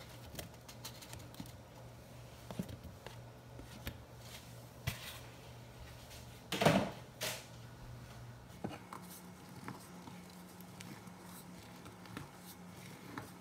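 Silicone spatula folding banana slices into a thick whipped-cream and pudding filling in a glass bowl: faint soft scrapes and small clicks against the glass, with one louder soft bump a little past halfway.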